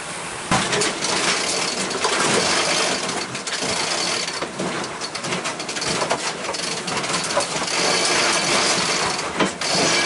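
Wind buffeting the microphone and water rushing past a sailboat's hull under way, with repeated sharp clicks and clatters of deck hardware as a line is hauled in by hand.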